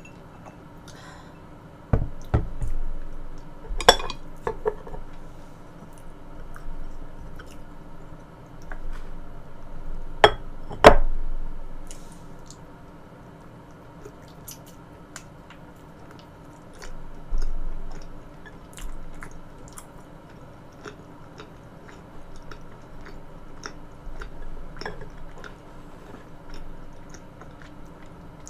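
Close-miked eating: wet chewing and mouth sounds, with a few sharp clinks of a utensil against a dish or cup in the first half.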